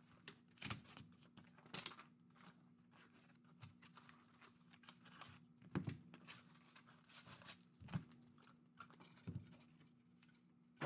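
Faint rustling and crinkling of a cardboard trading-card hobby box being opened and its wrapped card packs handled, with scattered soft clicks and taps.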